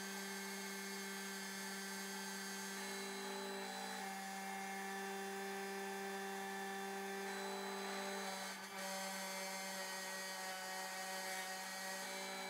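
Snapmaker A350 CNC spindle running with its bit routing lettering into a painted wooden board. The machine gives a steady whine with a hiss over it, and several tones shift in pitch as the head changes speed, with a brief dip about eight and a half seconds in.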